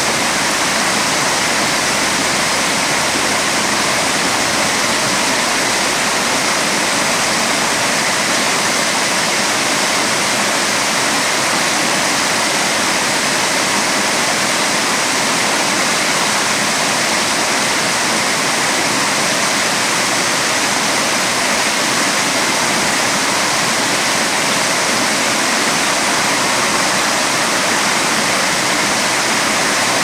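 Water of a small rocky stream running over stones, a steady rushing sound.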